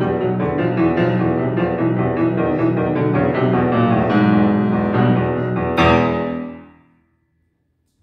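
Grand piano played solo: a fast, busy passage that ends in a loud accented final chord about six seconds in, which rings and dies away within about a second.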